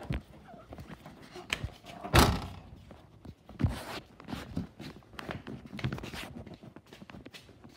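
A car's trunk lid shut with one thump about two seconds in, followed by scattered smaller knocks and rustles.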